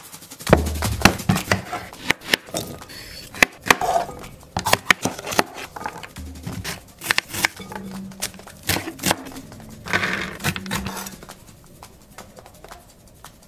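Kitchen food-preparation sounds: a run of sharp, irregular clicks, knocks and crackles as chopped salad ingredients go into a glass bowl, with music behind, thinning out after about eleven seconds.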